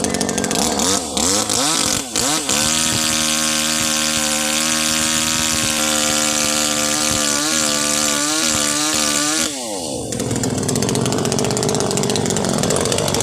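Chainsaw engine revved up and down a few times, then held at full throttle for several seconds with its pitch dipping briefly several times, before the throttle is released about nine and a half seconds in and the engine falls back to a lower, uneven running speed.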